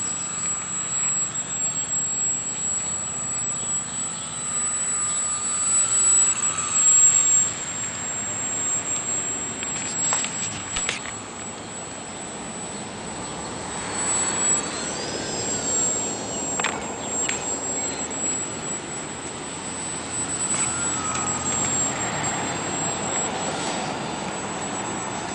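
Radio-controlled Flatout Cap 580 model aerobatic plane flying, its motor and propeller buzzing and changing pitch with the throttle, swelling louder as it passes close, most of all about a quarter of the way in.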